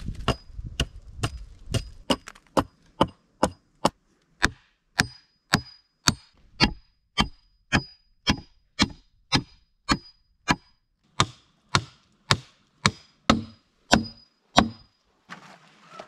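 Hatchet chopping a wooden pole: steady blows about two a second, many with a short high metallic ring. The chopping stops near the end.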